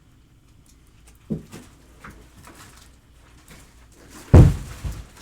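Handling noise on a tabletop: faint rustles and clicks, a knock about a second in, then a loud low thump about four seconds in followed by a smaller one.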